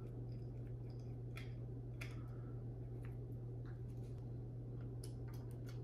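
Scattered small clicks and ticks of a tiny screwdriver and fingers working at a small plastic battery compartment, over a steady low hum.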